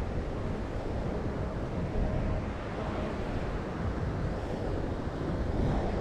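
Wind buffeting the microphone, with a steady wash of ocean surf behind it.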